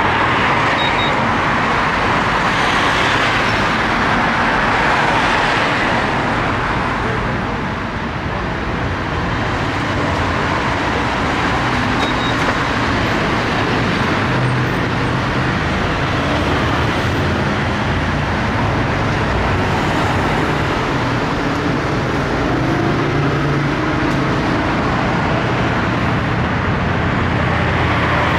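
Steady street traffic noise from passing cars, swelling and easing slowly, with a lower engine rumble more noticeable in the second half.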